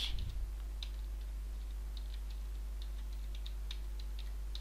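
Faint computer keyboard key presses, irregular short clicks a few per second, over a steady low electrical hum.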